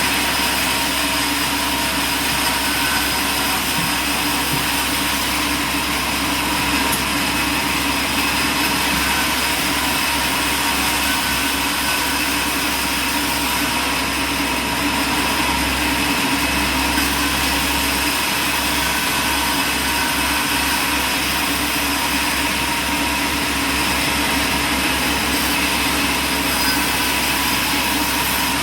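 Steady drone of heavy running machinery, an engine-like noise with a whine made of several steady tones.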